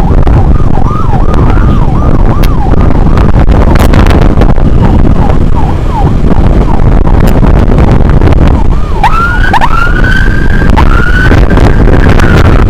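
Emergency-vehicle siren sweeping up and down in quick repeated cycles for the first few seconds, then after a short gap changing to slower, higher rising wails, over loud wind and road rumble on a moving motorcycle.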